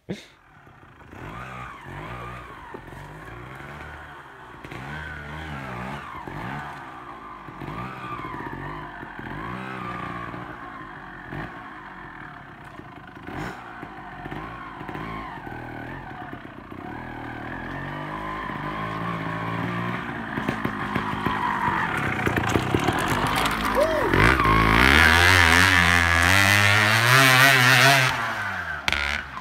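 Trials motorcycle engine revving up and down in short throttle blips as the bike is ridden slowly along a fallen log. It gets louder over the last several seconds as the bike comes closer.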